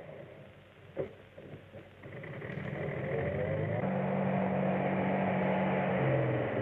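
An engine fades down and a sharp click sounds about a second in. Then an engine builds up from about two seconds in and runs loud and steady, its pitch climbing at first.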